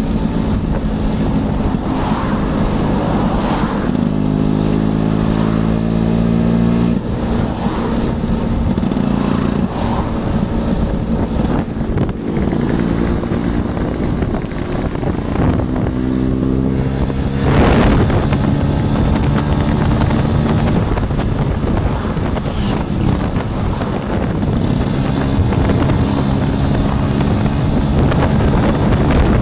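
Motor scooter engine running on the move, its revs climbing and dropping several times. A brief loud whoosh about two-thirds of the way through.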